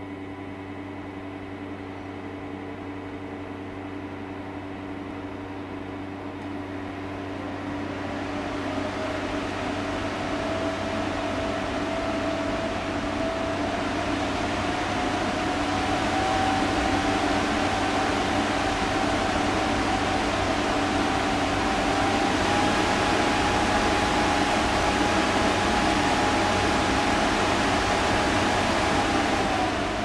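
Wahoo Kickr Headwind smart fan running up through its speed settings: the rush of air grows steadily louder and a motor whine rises in pitch in small steps. Both begin to fall away right near the end as the fan slows.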